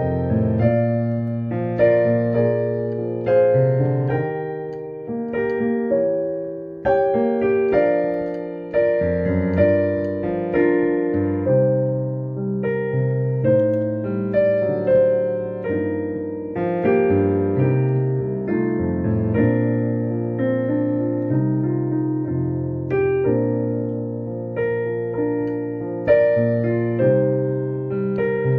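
Kurzweil CUP 302 digital piano playing a slow hymn arrangement, with sustained low bass notes under chords and a melody line.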